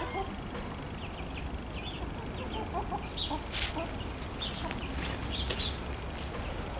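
Chickens clucking in short, scattered calls, with a few sharp clicks, the strongest about halfway through.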